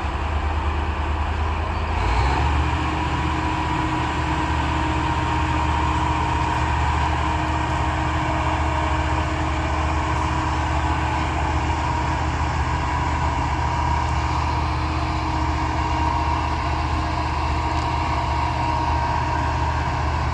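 A heavy engine running steadily. About two seconds in it picks up speed and gets louder, then holds there, with a thin steady whine over it.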